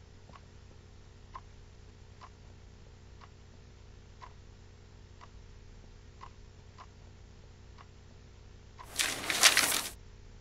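A clock ticking about once a second over a steady low room hum. Near the end, a loud burst of scraping, rustling noise about a second long.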